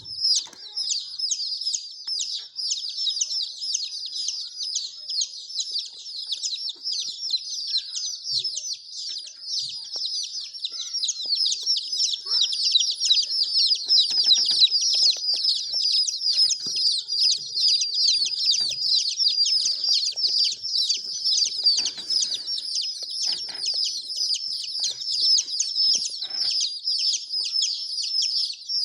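Many baby chicks peeping at once: a dense, unbroken chorus of short, high-pitched falling peeps.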